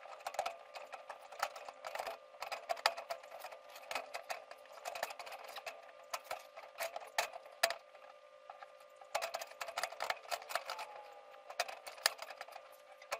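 Flexible metal chimney liner clinking, rattling and scraping in irregular clusters as it is pulled and twisted down through a fireplace damper opening, catching on the edges.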